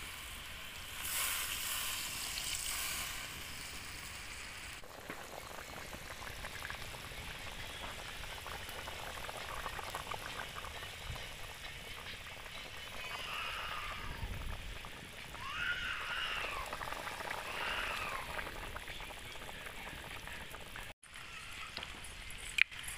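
Country chicken gravy boiling in a large aluminium pot over a wood fire, a steady bubbling hiss from the pot just after water has been added to the chicken and masala.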